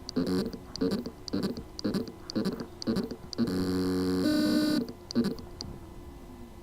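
Hard drive spindle motor with loose motor contacts struggling to spin up: a rhythmic pulsing about twice a second, broken by a longer buzzing tone, then dying away about five seconds in. The motor can spin but cannot reach full speed.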